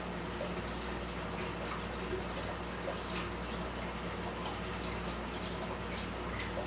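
Aquarium water running and bubbling steadily, with scattered small pops and drips over a low steady hum: the running filtration of a fish room.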